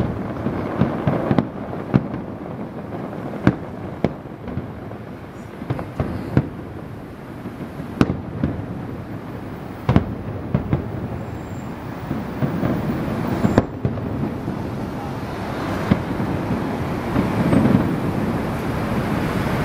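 Aerial fireworks display: shells bursting overhead in a continuous rumble and crackle, with sharp bangs every second or two, the barrage building louder near the end.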